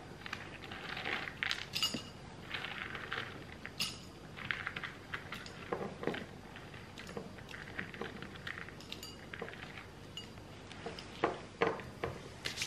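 Dry dog kibble clinking and rattling against ceramic dog bowls as it is handled, with irregular sharp clicks throughout and a few louder ones near the end. Mixed in is the crunching of a Shetland sheepdog puppy eating kibble.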